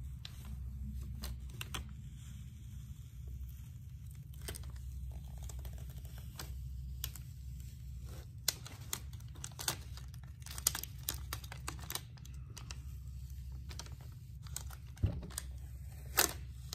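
Plastic adhesive stencil being peeled off freshly painted wood, crackling and ticking irregularly as it lifts from the still slightly tacky paint, the clicks coming thicker in the second half. A steady low hum runs underneath.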